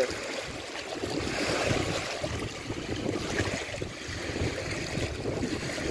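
Strong wind gusting across the microphone: a steady rushing noise with low buffeting.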